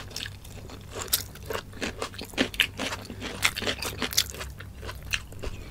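Close-miked eating: chewing with irregular sharp, crisp crunches from bites of raw cucumber salad.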